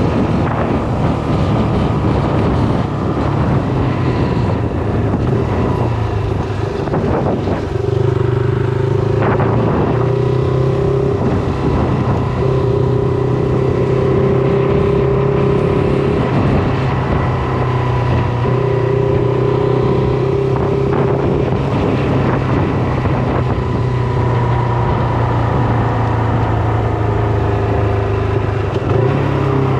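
Shineray SBM 250S motorcycle engine running while being ridden, its note holding fairly steady for most of the stretch after a less even start.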